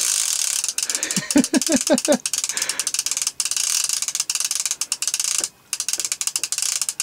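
Baitcasting reel clicking rapidly and continuously while a hooked goliath tigerfish is fought, with a brief break about five and a half seconds in.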